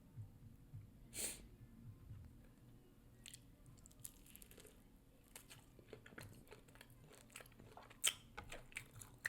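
Faint chewing of chicken wings: soft crunches and wet mouth clicks at irregular intervals, with a sharper click about eight seconds in.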